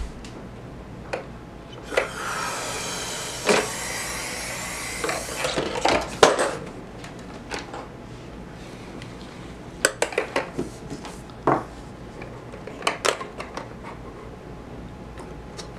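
Air rushing through the drinking straw of a balloon-powered plastic-bottle car, a breathy hiss lasting about three and a half seconds, as the balloon is blown up and let go. Then a scatter of light clicks and knocks as the bottle car is handled and set back down on the tabletop.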